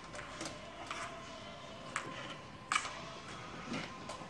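Scattered light clicks and taps from hands working on a car door and its wiring during an aftermarket camera install, about five in all with the loudest a little before three seconds in, over a faint steady hum.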